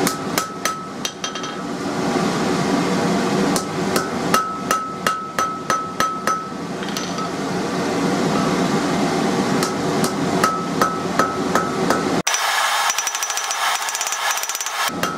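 Ball-peen hammer striking a hot mild steel bar on an anvil in runs of quick blows, each blow leaving a short bright ring.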